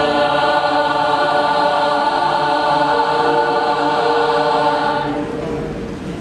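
School choir holding a sustained chord in several voice parts, which is released about five seconds in and dies away.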